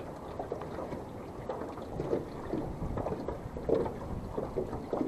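Wind on the microphone and water moving against the hull of a small aluminum fishing boat, an uneven, noisy wash.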